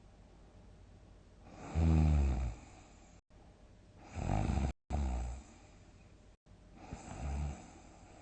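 A sleeping person snoring loudly: three separate snores a couple of seconds apart, the first the loudest.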